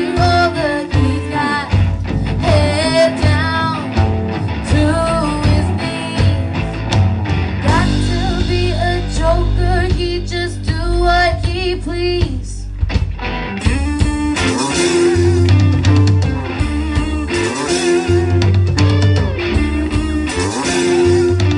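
Live rock band playing through a PA: electric guitars, bass and drum kit, with sung lead vocals in the first half and guitar lines carrying the rest.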